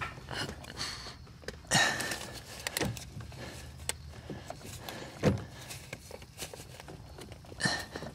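Steering-column U-joint being wiggled back and forth and pulled up off the steering rack's splined input shaft: scattered metal clicks and rustling, with a handful of louder knocks.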